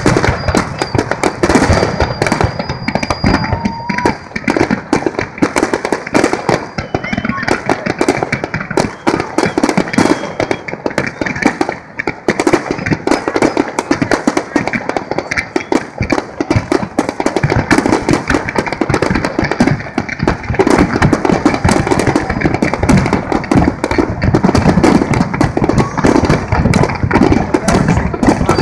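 Aerial fireworks shells bursting in a rapid, unbroken barrage of bangs and crackles, with a brief lull about twelve seconds in.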